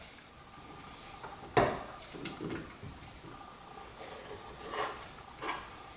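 Handling of tools and heavy battery cable: one sharp click about a second and a half in, then a few faint knocks and rubs.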